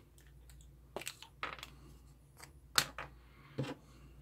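Small plastic parts of a soldering-iron handpiece being handled: a handful of light, separate clicks and taps, the sharpest a little under three seconds in.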